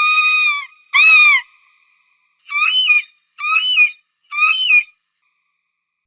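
Falcon calling with clear, whistle-like cries: a long held cry that ends just under a second in, a short down-slurred cry, then three short rising-and-falling cries about a second apart.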